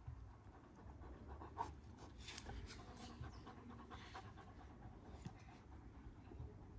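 Faint panting of a young Kangal dog.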